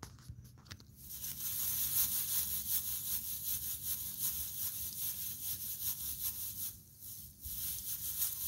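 Scratchy rubbing and rustling close to the microphone from a grass seed stalk and the hand holding the phone, starting about a second in, with a short break near the end.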